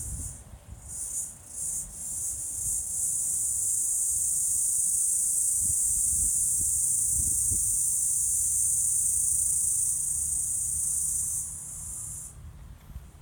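Cricket stridulating: a high-pitched trill that starts as a few short pulses, then runs on as one continuous buzz for about nine seconds and stops a little before the end.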